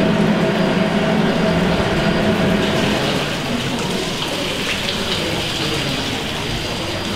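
Steam pumping engine's pump at work: the plunger rod rises and falls through its gland while water rushes and splashes in the pump well. A steady machine hum sounds underneath and fades about halfway through.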